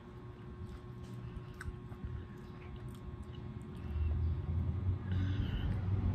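Faint wet clicks of someone chewing segments of kiat-kiat, small mandarin oranges. About four seconds in, a low rumble rises and holds.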